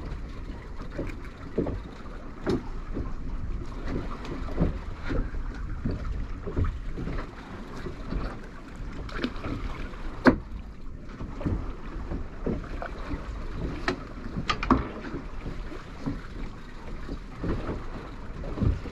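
Water slapping irregularly against the hull of a small boat, over wind rumble on the microphone, with one sharper knock about ten seconds in.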